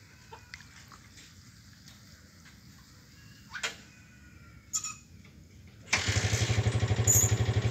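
Quiet background with a couple of faint clicks, then an engine suddenly comes on about six seconds in and runs loudly with a steady, rapid pulse.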